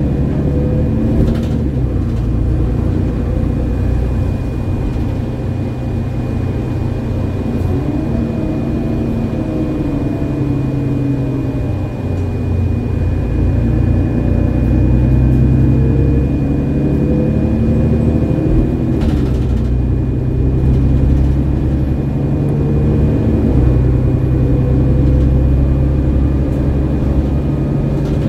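Inside a 2003 Mercedes-Benz Citaro G articulated city bus under way: its OM 906 hLA six-cylinder diesel runs steadily, its pitch rising and falling several times with a faint steady high whine over it.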